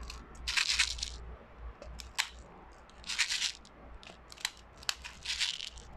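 BBs being loaded one at a time into the green-gas magazine of a KJ Works KP17 airsoft gas blowback pistol. Small sharp clicks and short rattly clusters come every second or so.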